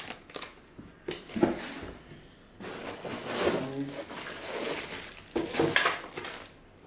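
Clear plastic wrapping rustling and crinkling as a plastic-wrapped car stereo head unit is handled and lifted out of its box, with a couple of light knocks of the unit's plastic frame about a second in.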